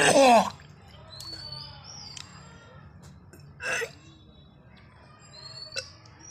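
A person retching loudly twice: a long, falling heave right at the start and a shorter one past the middle, with wet, gargling tones. Birds chirp in the background, a short rising whistle every few seconds.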